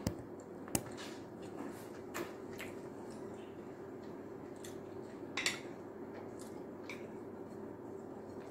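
A table knife clicking and scraping against a ceramic plate while cutting pieces of cooked cassava, a handful of short sharp clicks with the loudest a little past five seconds in. A steady low hum runs underneath.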